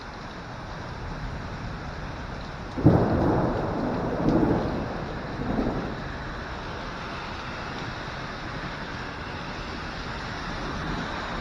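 Steady rain with a sudden clap of thunder about three seconds in that rolls on in two more rumbles and fades back into the rain after a few seconds.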